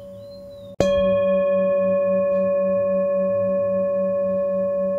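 A bell-like metal tone, struck once about a second in, then ringing on steadily with a slow wavering pulse.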